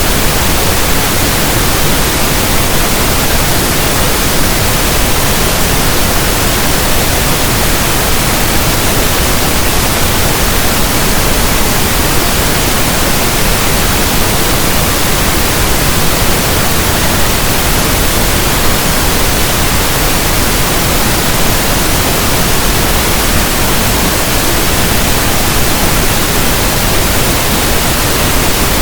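Steady, loud pink noise: an even, unbroken hiss like soft static from a radio not tuned to a station.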